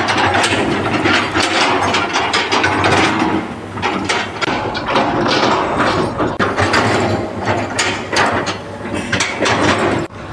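Machinery making a loud, continuous mechanical rattling and clattering, with many irregular sharp clicks.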